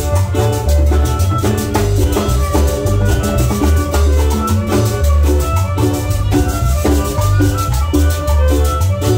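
Live Latin dance band playing: electric bass and drums keep a steady, driving beat under a keyboard melody, with timbales.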